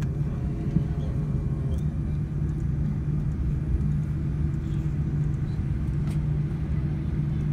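Steady low rumble inside the cabin of a Boeing 787-9 taxiing: its idling GEnx engines and the wheels rolling on the taxiway, heard through the cabin wall.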